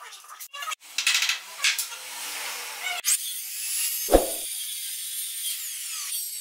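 A few short scratches and knocks, then an electric miter saw running and cutting through a hardwood handrail, a steady high whir with a low thump about four seconds in.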